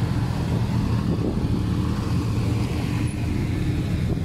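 Off-road vehicle engine running steadily at low revs, a constant low rumble.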